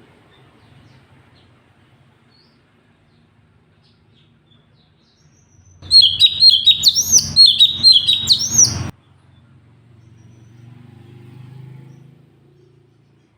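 Cucak cungkok songbird giving one loud, fast run of looping whistled notes for about three seconds, starting about six seconds in: the rapid 'tembakan' phrase that bird-keepers prize. Before and after it there is only a faint low hum.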